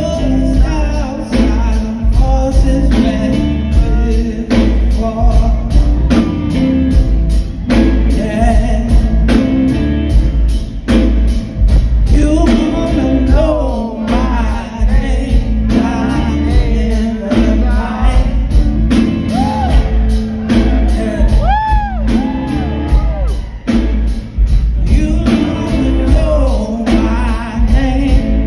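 Live blues-rock band playing loud: a man singing over electric guitar, drum kit and heavy bass, heard from the audience.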